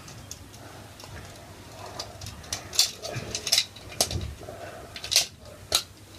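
Plastic toy packaging crackling and snapping in scattered clicks as a piece is worked free, with low bumps of handling noise.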